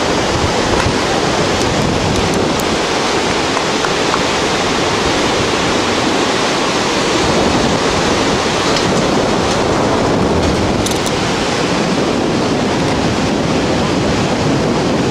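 Steady rushing roar of a whitewater river's rapids far below, mixed with wind on the microphone.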